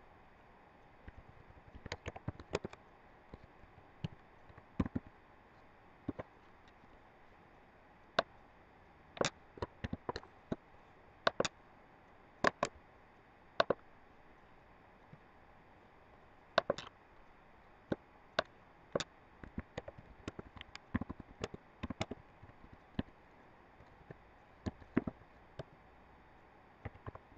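Computer keyboard keys and mouse buttons clicking irregularly, some in quick runs, over a faint steady hiss.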